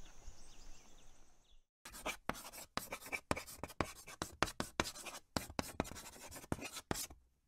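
Chalk writing on a blackboard: a quick run of short scratchy strokes as the letters are chalked out, starting about two seconds in and stopping shortly before the end. Before it, faint outdoor ambience with a steady high hum.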